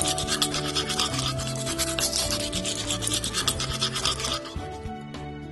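Toothbrush scrubbing on teeth, rapid back-and-forth bristle strokes, over gentle background music. The brushing stops about four seconds in and the music fades away.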